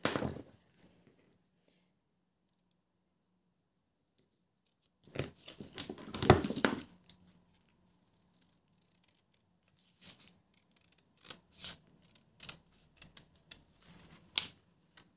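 Small craft scissors cutting through a paper print: a cluster of cuts about five seconds in, then a run of short, separate snips toward the end.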